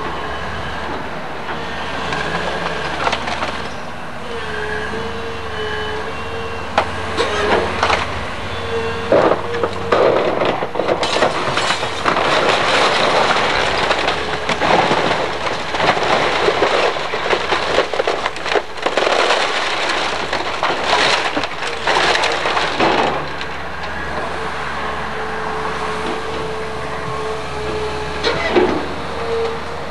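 Excavator engine running with a wavering whine while its bucket tears into a wood-frame house's roof. Wood cracks, splinters and crashes down in a long stretch from about a third of the way in to about three quarters through, with one more short crash near the end.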